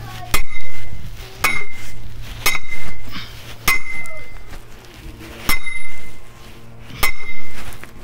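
Six hard metallic strikes at uneven intervals of one to two seconds, each ringing briefly with a clear high tone: a steel tool pounding at the ground for a post hole.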